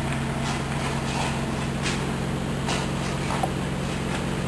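Footsteps crunching on crushed stone at a walking pace, about one step every 0.7 s, over a steady low mechanical hum.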